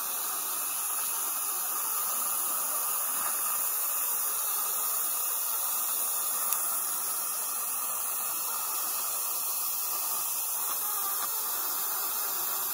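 Steady, even hiss of dental suction from a Nola dry-field isolation system drawing air at the patient's mouth, with one faint click about halfway through.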